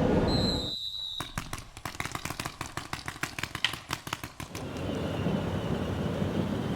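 A quick, irregular run of about twenty sharp cracks over some three seconds, after the background rumble drops away. A brief high steady tone sounds just before the cracks begin.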